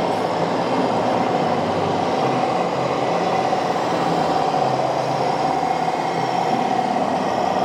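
1/6-scale RC military tank running, with a steady mechanical whine over a continuous rattling clatter.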